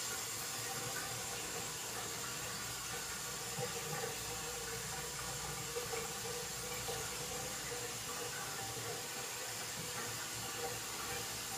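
Water running steadily from a waterfall-style faucet into a glass vessel sink, an even hiss.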